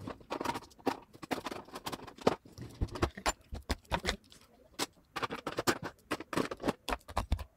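Makeup products and brushes being picked up and set down on a tabletop: an irregular string of light clicks and taps, with one sharper tap a little over two seconds in.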